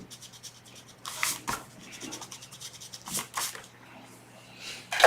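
Paper being handled: a few short rustling swishes and a run of quick light rubbing, like pages of a book and sheets of card being moved and slid against each other.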